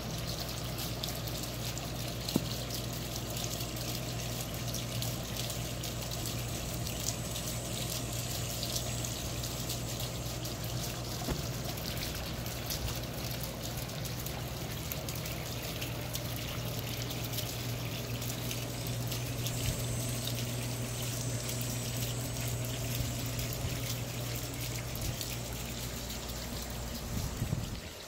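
Twin polished-top basalt column fountain: water bubbling up out of the column tops and trickling down onto river rock, a steady splashing trickle over a low steady hum. It falls away quickly near the end.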